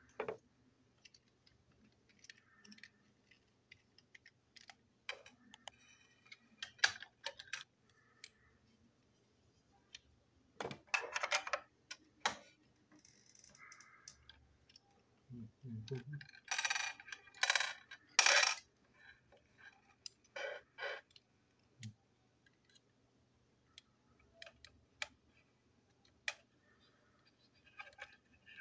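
Small plastic and metal parts of a toy train engine clicking, clattering and clinking against a hard table as it is taken apart with a screwdriver, with a loud cluster of sharp clicks about two-thirds through.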